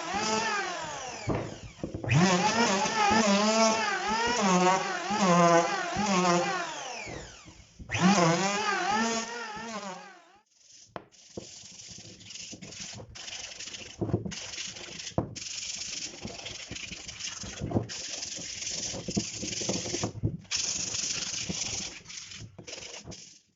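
Woodworking power tool whining, its pitch rising and falling about once a second as it is loaded. About ten seconds in it gives way to stretches of rasping, rubbing noise with short breaks, as of wood being worked.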